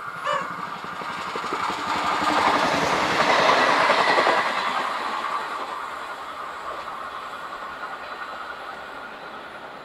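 Passenger train passing at speed close by, its wheels clicking and rattling over the rail joints; the sound swells to a peak a few seconds in and then fades as the train draws away. A brief high note sounds right at the start.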